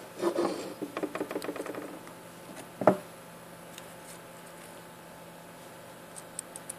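Handling noise from a stripboard circuit board being picked up and turned over: crackly rustling and small clicks for about two seconds, a single sharp knock about three seconds in, and a few faint ticks near the end.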